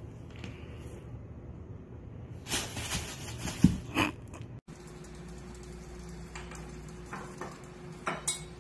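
Plastic shopping bag rustling and crinkling as a cat wriggles inside it, with a sharp thump about three and a half seconds in. After that comes a quieter stretch with only a faint steady hum and a few soft clicks.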